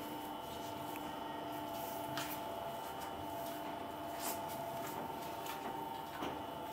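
Spiral dough mixer running steadily, its motor giving a constant hum with a few faint clicks, as the spiral hook kneads bread dough in the steel bowl.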